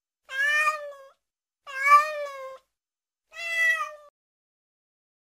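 Domestic cat meowing three times, each meow a little under a second long and about a second and a half apart.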